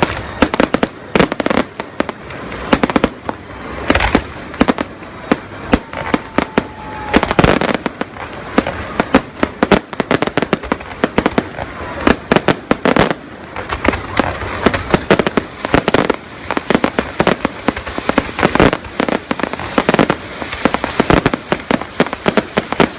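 Fireworks going off in quick succession: many sharp bangs and crackles, several a second, with a thin, slightly falling whistle about six to seven seconds in.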